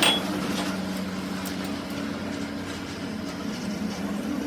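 A machine motor hums steadily, with a short metallic clink that rings at the very start and a few faint ticks after it.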